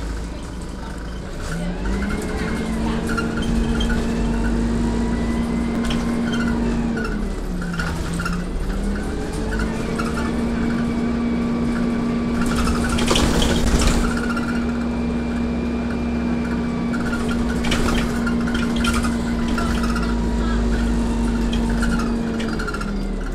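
ADL Dart single-deck bus heard from inside the passenger saloon while driving: drivetrain running with a steady whine that drops away for a second or two about a third of the way in, then returns and holds almost to the end, over a low road rumble. About halfway through there is a brief loud hiss.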